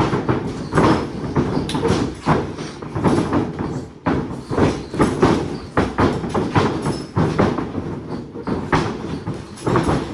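Feet pounding and running across a wrestling ring's mat, many heavy thuds in quick succession, mixed with the thumps of bodies dropping flat onto the mat during a drop-down, pass-by drill.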